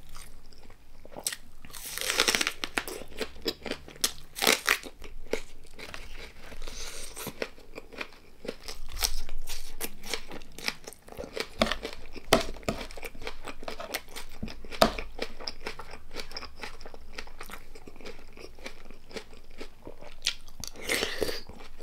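Close-miked eating: a person biting into and chewing crunchy food, with many short crisp crunches. Louder bursts of crunching come about 2, 4½, 12 and 21 seconds in.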